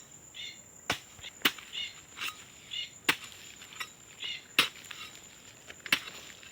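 About five sharp strokes of a digging tool chopping into the soil, spaced irregularly a second or so apart, as the earth is loosened for planting cassava cuttings. Short insect chirps repeat between the strokes.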